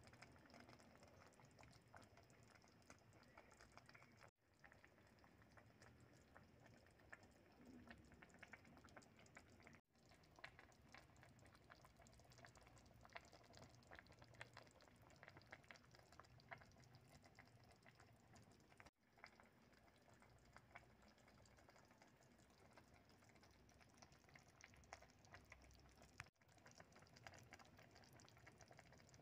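Faint, irregular ticking and popping of a pot of chicken noodle soup simmering.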